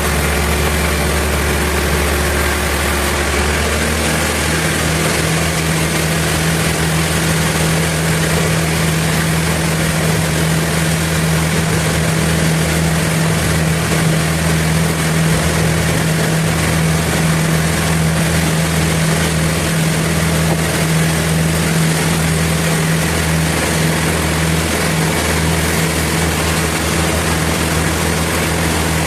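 Sawmill machinery running with a steady, loud drone. Its tone changes about four seconds in, when a stronger hum comes in and holds.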